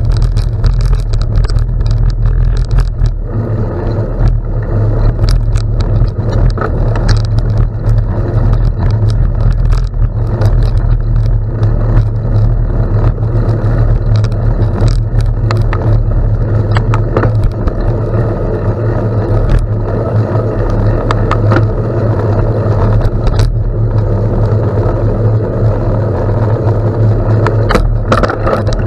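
Steady rushing wind buffeting the microphone of a camera on a moving bicycle, with tyres rolling over gravel and frequent sharp clicks and rattles from stones and the bike.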